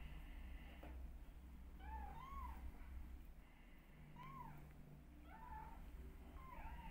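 Newborn kittens mewing faintly: about five short, high-pitched mews, some in quick pairs, each rising and falling.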